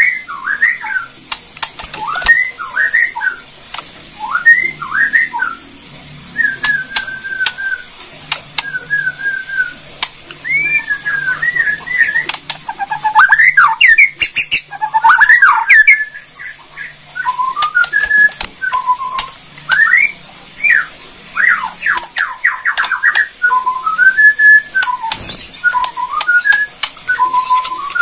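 White-rumped shama (Borneo murai batu) singing a long, varied song of sweeping whistled phrases, with sharp clicking 'kretekan' notes mixed in, thickest around the middle.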